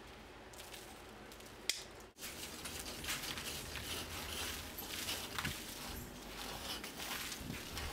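A fine hand tool scraping out joint lines in freshly stamped lightweight cement: faint scratching with one sharp click, then, after an abrupt cut, a louder and busier run of small scrapes and ticks.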